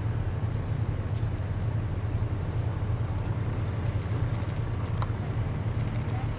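Continental O-200 four-cylinder air-cooled engine of a Pietenpol Air Camper in flight overhead, a steady low drone.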